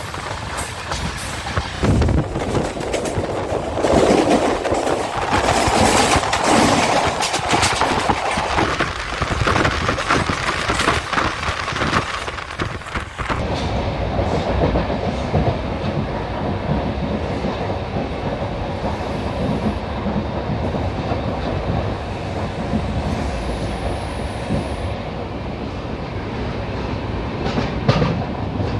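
Wheels of a moving LHB passenger coach running on the rails, heard from its open doorway: a loud rumble with rapid clacks over rail joints for the first dozen seconds, settling to a smoother, steadier rumble after about 13 seconds.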